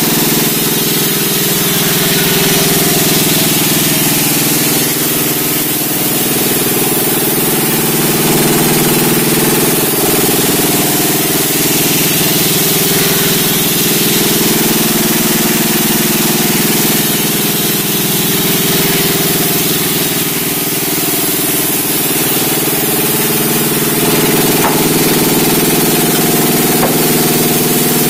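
Sawmill running steadily, its engine droning with a steady hiss over it, with no break or pause.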